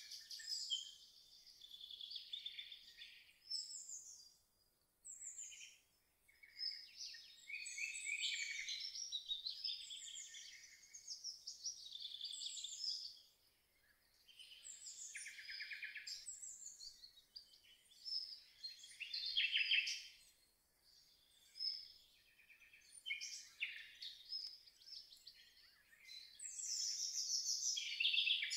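Songbirds singing: a busy run of overlapping chirps, warbles and trills, coming in bouts with a few short lulls.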